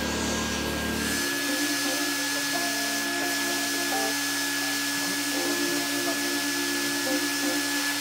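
Carpet extractor running, its vacuum motor giving a steady whine as the upholstery tool is drawn over a cloth seat cushion. About a second in, the low hum drops away and a steady high whine and hiss carry on.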